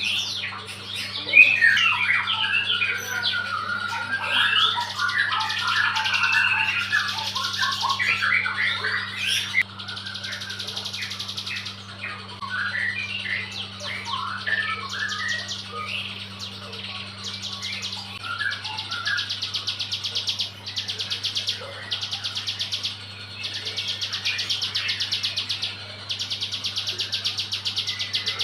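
Ciblek gunung, a small prinia, singing. Varied chirps and twittering notes crowd the first half; after that a rapid, buzzy trill repeats in bursts of a second or two. A steady low hum runs underneath.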